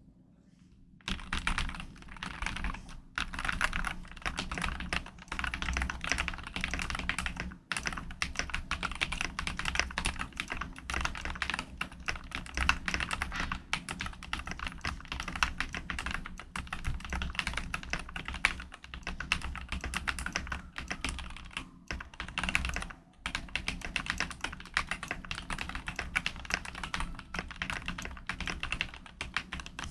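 Fast, continuous typing on a Keychron Q6 Pro mechanical keyboard fitted with hand-lubed SP Star Meteor V3 switches and an acoustic upgrade kit. Dense keystrokes start about a second in, with a few brief pauses.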